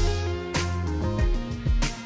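Background music with a steady beat, bass and plucked guitar.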